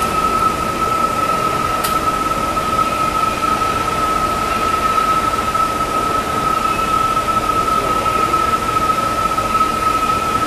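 Heinrichsglück H50 welding positioner's electric tilt drive and gearing running as the table tilts: a steady high whine over a constant noisy hum, with a single click about two seconds in.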